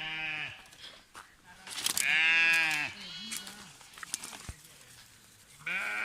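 Sheep bleating: a short call at the start, a longer and louder one about two seconds in, and another near the end, with a few faint knocks in between.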